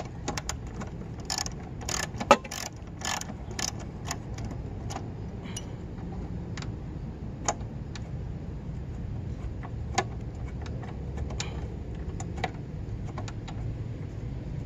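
Ratchet and socket backing out a long bolt from the lawn mower's belt guard: irregular metallic clicks and clinks, closely spaced in the first few seconds with one sharp clink about two seconds in, then fewer and further apart.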